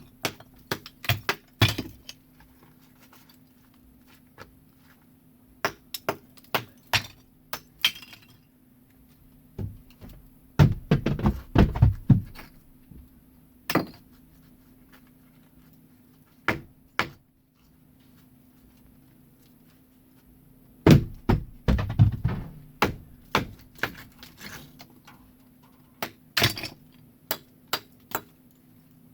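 Irregular knocks and thunks of chimney masonry being hammered and broken loose, with two bouts of clattering rubble, about a third and two-thirds of the way through.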